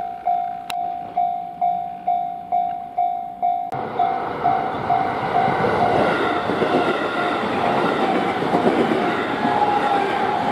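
Japanese level-crossing warning bell ringing in quick single-pitched strikes, about two a second. About four seconds in, a train comes through the crossing with a sudden loud rush of wheel and rail noise that covers the bell.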